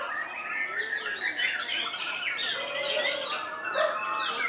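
Many caged songbirds, white-rumped shamas among them, singing at once: a dense tangle of overlapping whistles, trills and chirps with no break.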